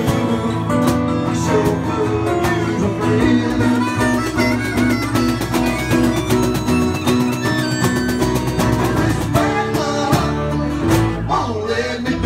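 A country-Americana band playing live in a small room: acoustic guitar strumming over a steady bass line, with a harmonica carrying the wavering lead melody.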